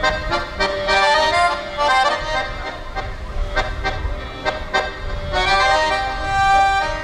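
Piano accordion played solo: a melody of changing notes over held chords, with short sharp accented notes here and there.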